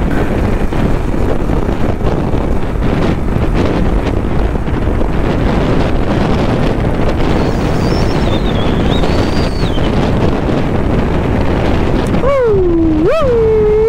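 Heavy wind buffeting on a helmet-mounted microphone that has lost its foam windscreen, while riding a motorcycle at speed. Near the end a pitched tone rises and falls a few times over the rumble.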